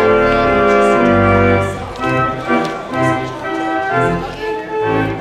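Church organ playing the postlude at the close of the service: full held chords for about two seconds, then a livelier passage of shorter moving notes.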